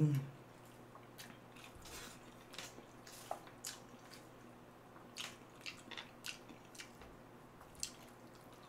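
A brief low hum at the very start, then quiet eating sounds: soft wet chewing of Chapagetti noodles with scattered small clicks of chopsticks picking food from a plastic tub and stirring in a frying pan.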